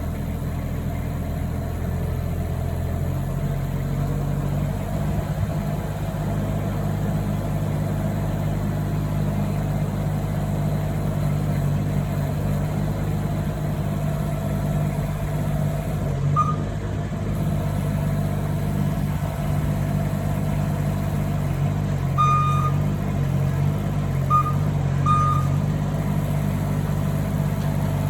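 Engine of a powered post-hole auger running steadily while drilling fence post holes, with a low drone. Its note shifts a few times, and short high squeaks come through about two thirds of the way in.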